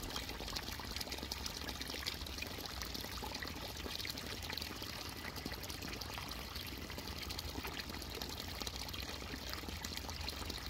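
Steady rain falling, a dense even patter of many drops.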